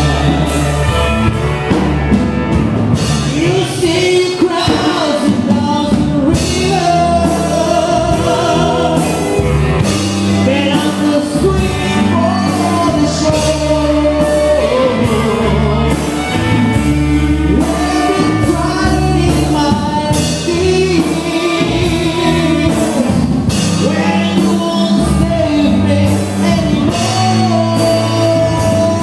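A band playing a song with a lead vocal over bass and drums, captured as raw, unprocessed sound from a camera's own microphone.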